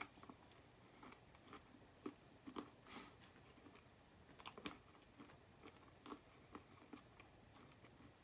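Faint chewing of a chewy granola protein bar with peanuts and almonds: irregular soft mouth clicks and small crunches, several a second, after a bite at the very start.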